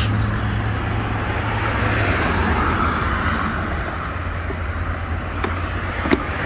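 Steady low rumble of a running engine and road traffic, with two sharp light clicks near the end.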